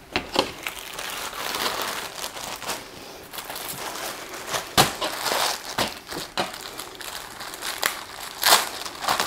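Packaging crinkling and rustling as it is handled, with several sharp crackles.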